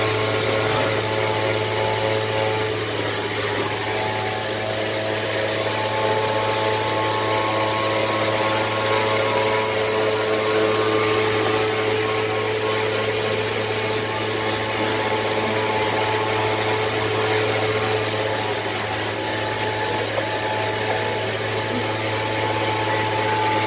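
Steady drone of a running motor: a constant low hum with several steady tones above it.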